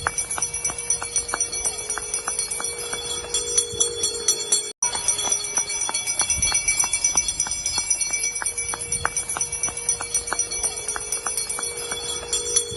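Hand bells ringing continuously over a steady rhythmic beat of about three strokes a second, with a long held tone sounding twice; the sound cuts out for an instant just under five seconds in.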